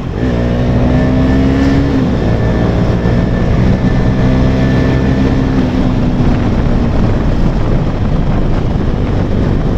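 KTM Duke 250's single-cylinder engine through a loud, bassy aftermarket exhaust, pulling under hard acceleration. The engine note holds steady, breaks about two seconds in, then holds again until about six seconds in before blurring into road and wind noise.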